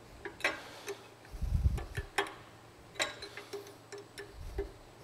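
Ratchet wrench clicking in a string of light, irregular metal ticks as the nut on the bottom of a car-wash side brush motor shaft is loosened. A dull low thump comes about a second and a half in.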